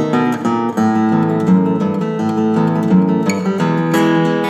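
Acoustic guitar instrumental, strummed chords ringing on with a few sharp strums.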